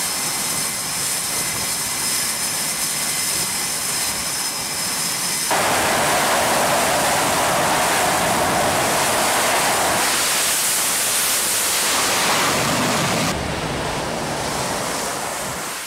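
F/A-18 Hornet jet engines running on a carrier flight deck, with a steady high whine over the jet noise. About five seconds in, this gives way suddenly to louder, steady jet noise, and the sound shifts again near the end.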